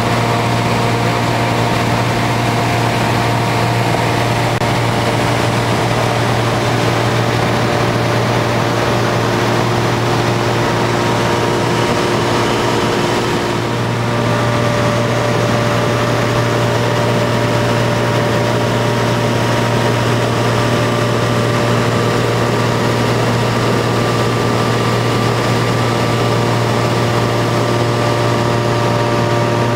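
Single-engine Cessna's engine and propeller running steadily in flight, a constant drone heard inside the cabin.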